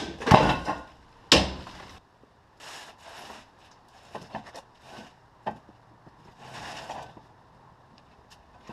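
Two loud knocks in the first second and a half, then softer scrapes and scattered clicks.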